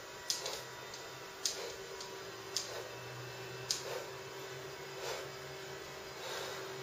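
Sharp clicks at an even pace of a little more than one a second, four of them, followed by two softer, duller knocks, over a steady low hum.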